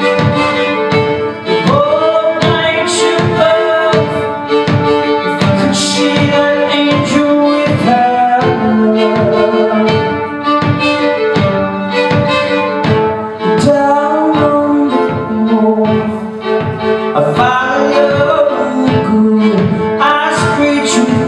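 Live fiddle played in a driving folk rhythm, with a man singing over it in several phrases, and a steady percussive beat of about two to three hits a second.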